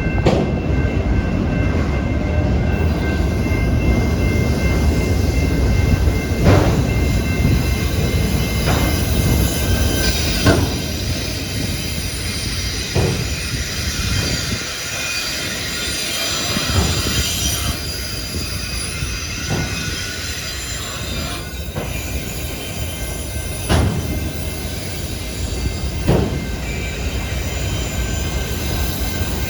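CPKC train's cars rolling by: a steady low rumble with thin, high, steady wheel squeal over it, and a few sharp clanks spread through the passage.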